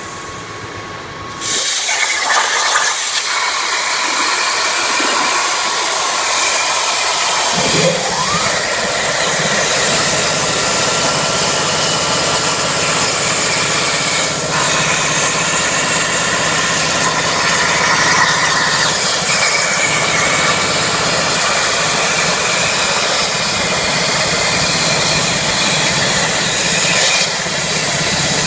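CNC plasma cutter at work: a loud hiss of the torch's air and arc switches on about a second and a half in, and from about seven and a half seconds a low steady buzz joins it as the cut goes on.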